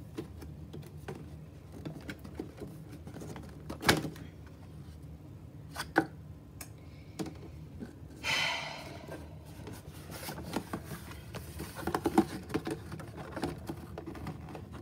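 Cardboard box being handled and opened by hand: scattered taps and clicks, two sharper knocks, and a short scraping rustle about eight seconds in, followed by a run of small clicks.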